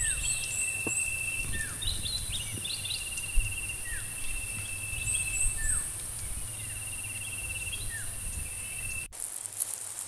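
Outdoor insect and bird ambience: a steady high insect whine and a fast, buzzy trill repeating in long runs, with short falling bird calls and high chirps over a low rumble. About nine seconds in it cuts abruptly to a quieter ambience without the rumble.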